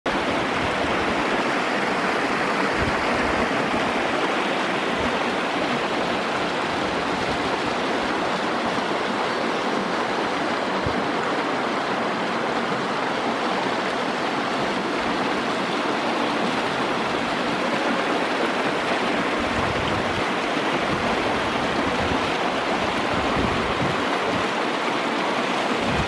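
Small creek running fast over its shallow bed between snow banks, its water splashing and foaming in a steady rush.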